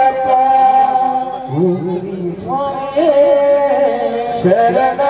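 Devotional song: a man singing a slow, wavering melody over a steady held drone.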